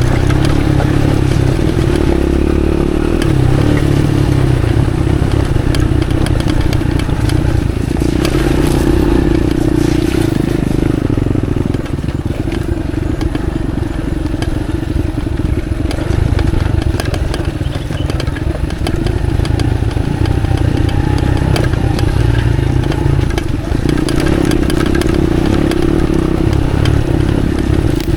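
Motorcycle engine running steadily at low speed, easing off briefly twice, with scattered knocks and clatter from the bike.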